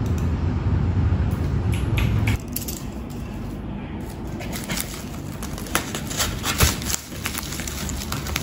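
A steady low hum cuts off about two seconds in. Then plastic bubble wrap crinkles and crackles in irregular sharp clicks as hands grip and pull at a bubble-wrapped parcel.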